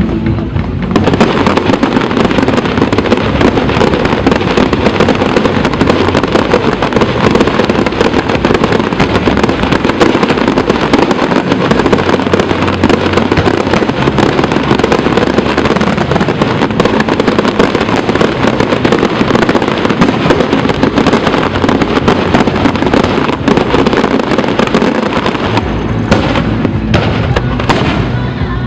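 Fireworks display: a dense, continuous barrage of bursts and crackling. It starts about a second in and thins to separate bangs near the end.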